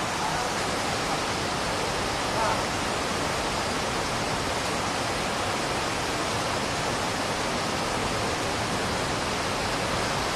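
Steady rush of fast-flowing river water churning into white foam, a constant noise that covers everything else.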